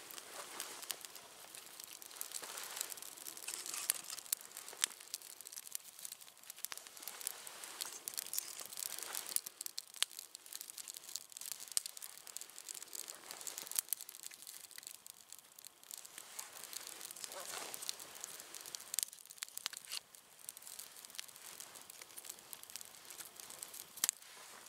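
Small campfire of dry kindling and sticks crackling, with frequent sharp pops and rustling swells now and then.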